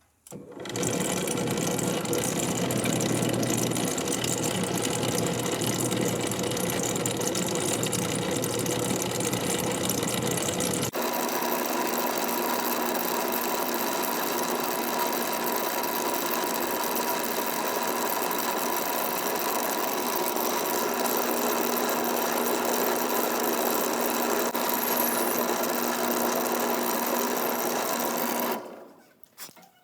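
Electric drill running steadily, boring out the old wooden handle stuck in a hatchet head's eye. Its tone shifts suddenly about a third of the way through, then it stops shortly before the end.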